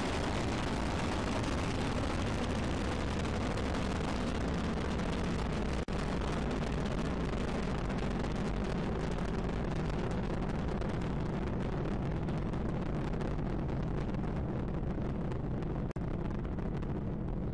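Proton-K rocket's first-stage engines (six RD-253s) during lift-off and ascent: a steady, deep, rushing noise that grows duller as the rocket climbs away. There are two brief dropouts, about six and sixteen seconds in.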